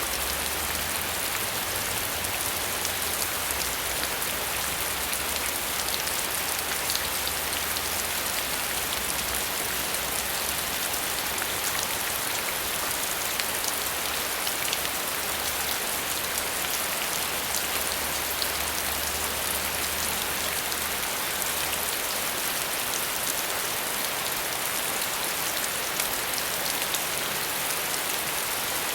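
Steady rain falling, an even hiss with many small drop patters. A low rumble underneath stops about three-quarters of the way through.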